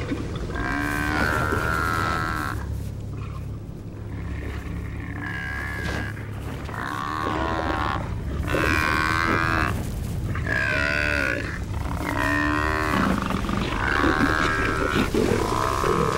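Cape buffalo bull bellowing in distress, a series of drawn-out moaning calls about every second and a half, as lions hold it down and bite it, over a steady low rumble.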